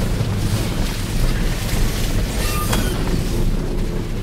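Road noise inside a vehicle on a rough dirt road: a steady low rumble of engine and tyres with rattling from the cab, and a sharper clatter about two and a half seconds in.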